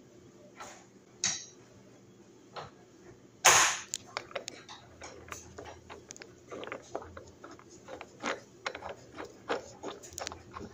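Small metal clicks and taps of a bolt, washer and nut on a barn door handle as the nut is spun on by hand, with one loud knock about three and a half seconds in.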